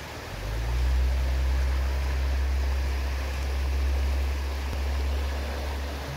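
Fast-flowing river water rushing steadily over a strong, constant low rumble that swells in about half a second in.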